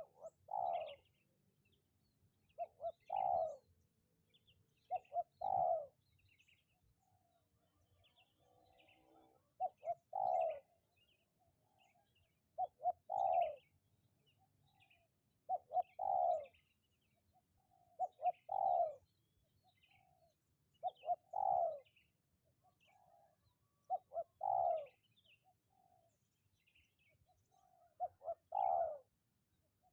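A dove cooing, repeating the same short phrase about every two and a half to three seconds, ten times. Each phrase is a few quick notes followed by a longer coo, with faint chirps of smaller birds in between.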